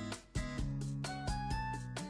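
Background music with a steady beat and melodic instrument notes.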